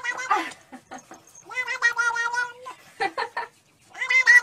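Tabby cat meowing in a series of calls: a short one, then a long call held on one pitch, a few short cries, and another call starting near the end.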